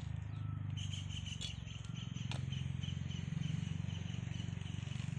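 Outdoor insect chorus: a steady, finely pulsing high-pitched chirring over a louder low steady rumble, with a short faint bird call about two seconds in.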